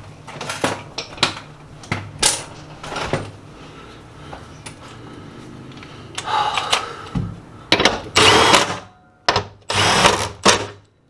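Compact cordless impact wrench driving a bolt under the car: several short bursts at first, then two longer bursts of about a second each near the end.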